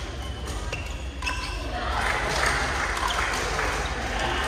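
Irregular sharp knocks, several in the first second and a half, over a steady low hum, with a noisy murmur that rises about two seconds in.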